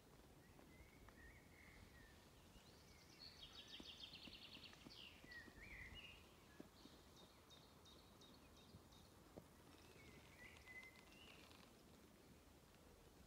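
Faint birdsong over near silence: scattered chirps and a rapid trill of quick repeated notes in the first half, with a few more chirps near the end.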